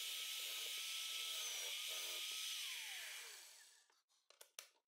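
Column drill (bench drill press) running with a faint steady whine, then switched off: about two and a half seconds in the whine falls in pitch as the spindle winds down and fades out. A few faint clicks follow near the end.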